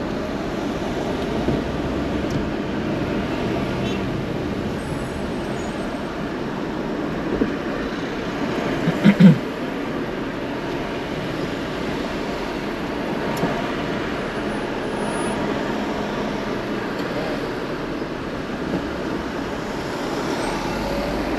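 Steady road and traffic noise from a car creeping along in heavy city traffic, with one short loud thump about nine seconds in.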